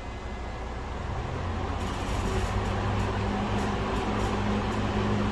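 A 20-inch Eskimo single-speed box fan, made by McGraw-Edison, starting up on high: the rush of moving air builds over the first two seconds, then holds steady over a low motor buzz.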